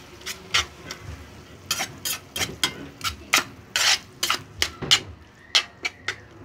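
A slotted metal spatula scraping and knocking against a frying pan while stirring corned beef and onions, in quick, irregular strokes several times a second.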